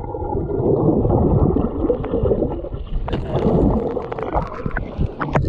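Churning seawater and bubbles heard through a camera held underwater in rough surf: a muffled, continuous rushing and gurgling, with scattered crackles and clicks from about three seconds in.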